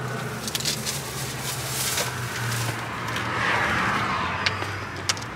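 Car noise: a steady low hum with a rushing swell about three to four seconds in.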